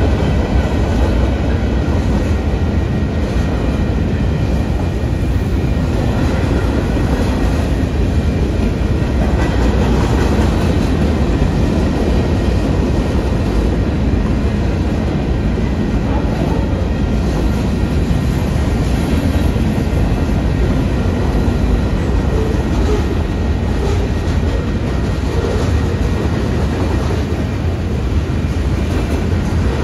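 A train rolling past at steady speed, its wheels running on the rails, loud and unbroken throughout.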